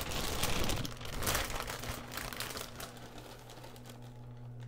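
Plastic bag of kale crinkling as it is shaken and emptied into a pot, with leaves rustling; loudest in the first second or two, then dying down to lighter rustles.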